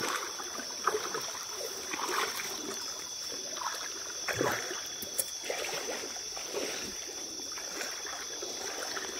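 River water sloshing and splashing in irregular small bursts as someone wades through it, over a steady high-pitched drone.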